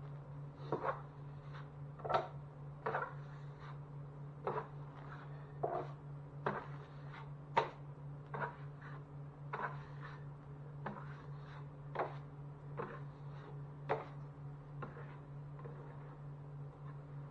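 A series of short taps and scrapes, roughly one a second at uneven spacing, from hand tools working on drywall, over a steady low hum.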